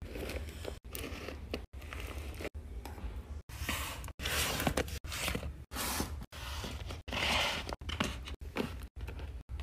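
Paper squishies, handmade paper craft packages, crinkling and rustling as they are handled and set in place. The sound is broken by short dead silences about once a second, with the loudest crinkles about four seconds in and again about seven seconds in.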